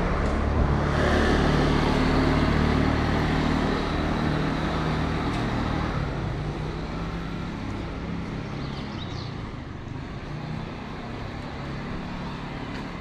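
Street traffic: a motor vehicle's engine running close by, loudest in the first few seconds and then fading away into a steady hum of road traffic.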